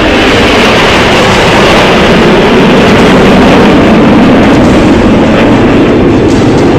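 Jet aircraft passing overhead at an air show: a loud, steady rushing engine noise that swells slightly toward the middle.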